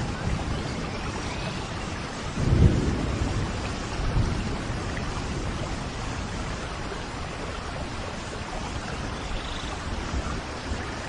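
Steady rain hissing, with a low roll of thunder about two and a half seconds in and a softer rumble a second or so later.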